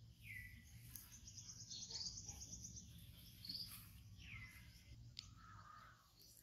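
Faint birdsong: a call sweeping downward, heard twice about four seconds apart, with short chirps and a rapid high trill in between.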